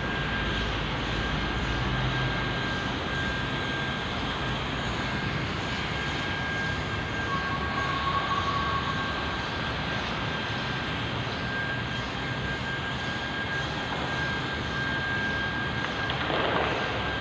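A machine motor running steadily: an even rushing noise with a constant high-pitched whine over it.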